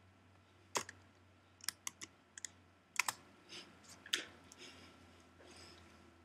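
Computer keyboard and mouse clicks: about a dozen irregular sharp clicks and taps, the loudest about three and four seconds in, over a faint steady low hum.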